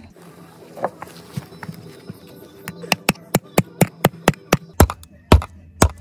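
Hammer driving nails through twigs into a wooden birdhouse frame. A quick run of about a dozen sharp strikes comes at roughly four a second, and the last few are louder and further apart.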